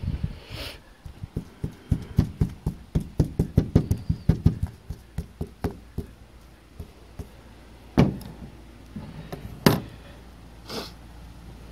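Paintbrush dabbing resin into fiberglass mat on a van's thin steel roof: a run of quick, soft knocks, about three or four a second, for several seconds, then two louder single knocks later on.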